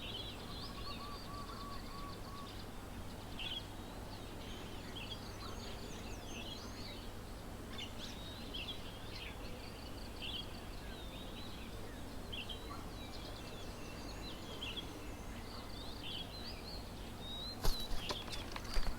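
Small birds chirping at a garden bird table: many short, high calls in quick succession over a steady low hum. A few sharp clicks come near the end.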